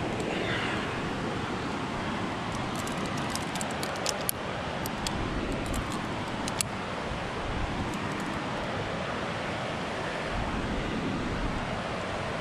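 Steady rushing noise of wind on the microphone. Through the middle comes a run of light, sharp metallic clinks from carabiners and quickdraws on a climber's harness.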